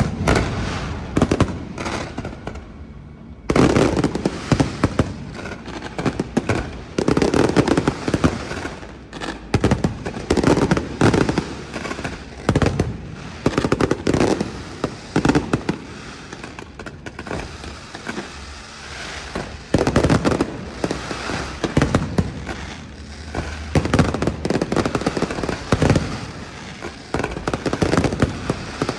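Aerial fireworks going off in rapid volleys of bangs and crackle, with a short lull about three seconds in.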